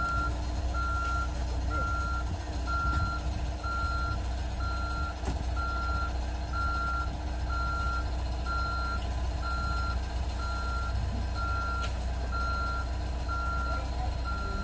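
Heavy machine's reversing alarm beeping steadily, one unchanging tone about four times every three seconds, over the low rumble of its running engine.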